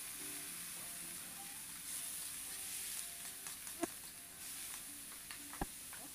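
Ground chicken sizzling as it is sautéed in a pan over an open fire: a steady frying hiss while it is stirred, with two sharp knocks of the spoon on the pan near the end, the second one louder.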